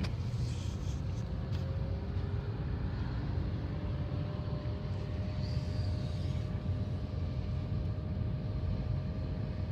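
Car engine and road rumble heard from inside the cabin in slow traffic: a steady low drone with a faint constant hum above it.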